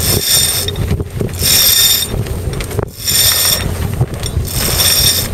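A sail being hoisted on a yacht in repeated pulls: the halyard and sail run up with a short high-pitched rasp four times, about every second and a half, over wind buffeting the microphone.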